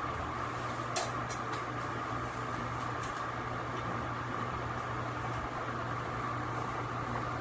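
Haceb air conditioner's indoor-unit blower motor running steadily, a low hum with a steady higher whine above it, on freshly replaced ball bearings: running in optimal condition. A brief click about a second in.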